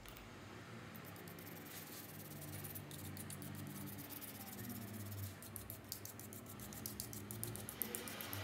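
Faint, quick scratchy strokes of scrubbing on the solder side of a monitor's power supply board, cleaning it with pure alcohol after new capacitors were soldered in; the strokes come faster in the second half.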